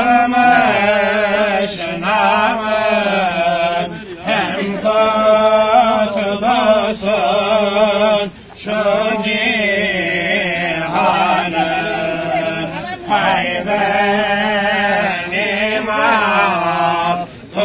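A man chanting an Islamic devotional hymn unaccompanied, in long ornamented phrases with short breaths between them, over a low steady held note.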